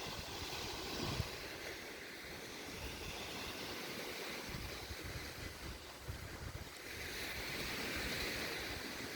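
Sea of Azov surf washing onto the beach, its hiss swelling near the start and again near the end, with wind rumbling on the microphone.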